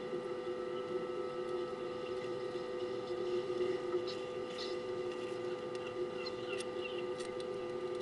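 A steady electrical hum made of several level tones, with a few faint crackles about halfway through.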